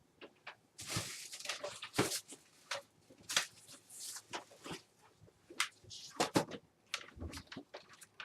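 A computer keyboard and mouse being fetched and handled: irregular clicks, knocks and short rustles of plastic and cables.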